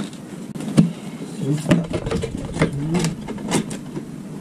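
Plastic wrap and foam packing sheets around a new fan rustling and crinkling as they are pulled apart by hand, with irregular sharp crackles.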